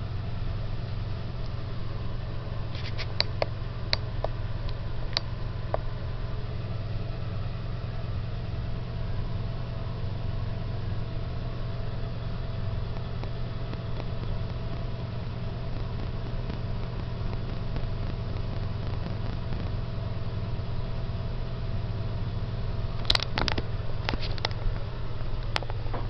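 A steady low hum over a faint even hiss, with a few sharp clicks about three seconds in and a cluster of clicks near the end.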